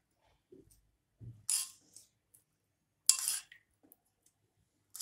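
A steel spoon scraping and clinking against a small pan twice, about a second and a half apart, as tadka is spooned out over dhokla, with a few soft knocks just before.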